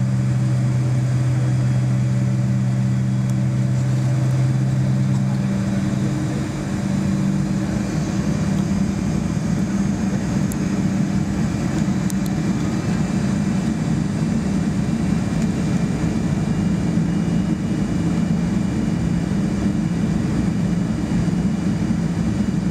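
Boeing 737-200's Pratt & Whitney JT8D turbofan engines heard from inside the cabin, running steadily at low power with a deep hum. About six seconds in, the hum changes and the sound grows rougher.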